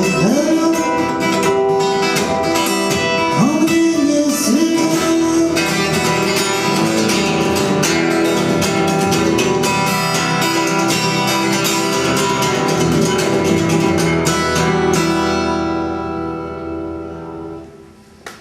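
Acoustic guitar playing an instrumental passage of a song, strummed and plucked with ringing chords, dying away over the last few seconds.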